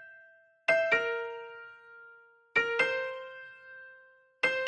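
Background music on a keyboard with an electric-piano sound: notes struck in quick pairs about every two seconds, each pair ringing out and fading before the next.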